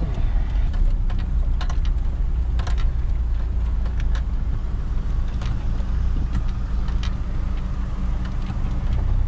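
Steady low engine and road rumble inside the cabin of a Toyota Land Cruiser 78 Prado rolling slowly, with a few scattered light clicks.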